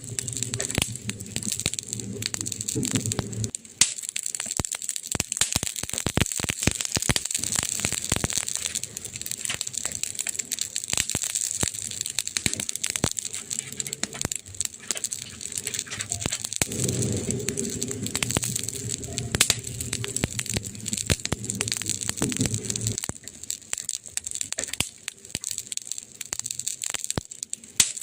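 Wood fire crackling in a fireplace: irregular pops and snaps throughout, with a low steady sound underneath during the first few seconds and again for several seconds after the middle.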